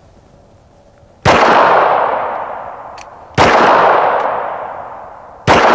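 Three .45 ACP pistol shots about two seconds apart, each followed by a long echo that tails off.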